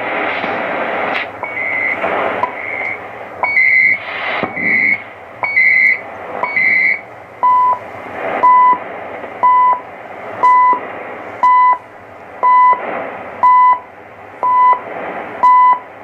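Shortwave time-signal beeps from CHU Canada received on a Hallicrafters SX-71 tube receiver: a short tone pulse once a second over a steady static hiss. The beeps are higher-pitched in the first few seconds, then settle from about halfway on to a steady lower tone each second.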